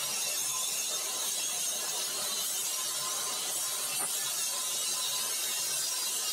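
Corded circular saw running steadily while it is pushed along a guide board through a cut, a constant even noise.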